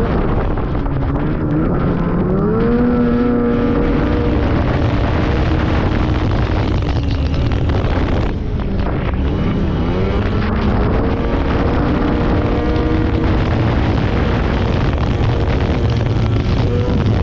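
Two-stroke snowmobile engine running hard under way, its pitch climbing about a second in, dipping briefly as the throttle eases just past halfway, then climbing again and holding.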